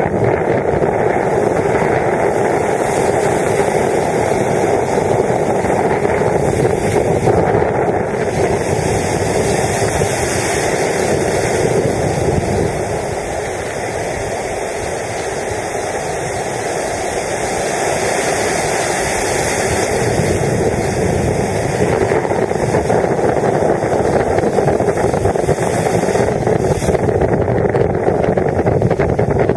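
Wind buffeting the microphone over the steady wash of breaking surf, easing off for a few seconds about halfway through.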